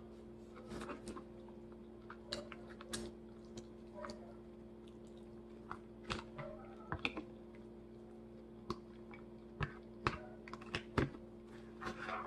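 Close-miked chewing of a crisp salad: irregular, crunchy mouth clicks and smacks from lettuce and candied pecans being eaten, over a steady low hum.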